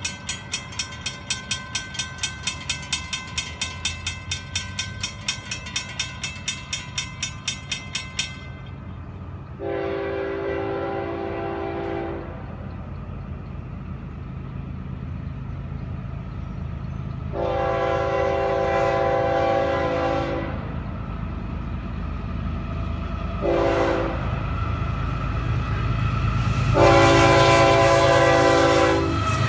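Railroad crossing bell ringing in rapid strokes, stopping about eight seconds in. An approaching Florida East Coast Railway diesel freight train then sounds its horn in the grade-crossing signal, long, long, short, long, over the rising rumble of its GE ES44C4 locomotives.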